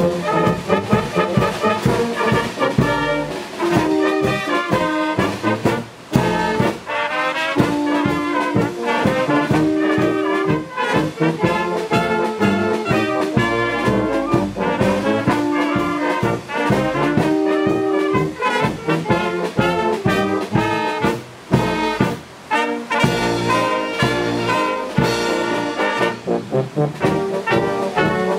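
Wind band of brass and woodwinds (trumpets, trombones, tubas, flutes, saxophones) playing a tune together, in a steady run of short notes with brief breaks between phrases.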